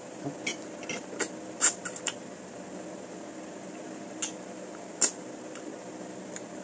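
Eating sounds: a quick run of sharp clicks and clinks for about two seconds, then two more about four and five seconds in, over a steady low hum.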